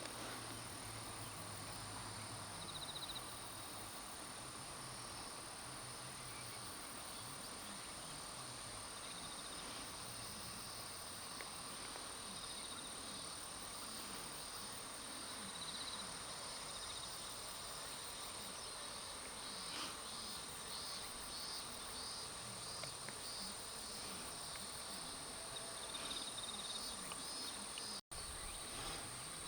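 Insects, crickets among them, trilling steadily in a high continuous drone, with faster pulsed chirping from other insects joining in the second half. The sound cuts out for an instant near the end.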